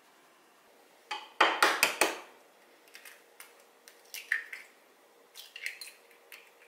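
A quick run of sharp knocks and clicks about a second in, then lighter taps and clicks as eggs are cracked and dropped into a glass mixing bowl.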